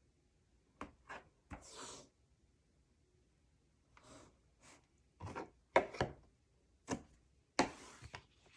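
Adhesive tape being pulled from the roll and torn off with a tear tool, with paper handled between: a series of short crackly rips and clicks, two of them longer drawn-out rasps.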